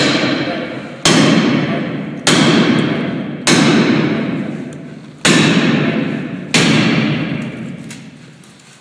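A Halligan bar is being driven into the hinge side of a metal door by repeated blows from a striking tool. There are five heavy metal-on-metal strikes, about one to one and a half seconds apart, each ringing out before the next.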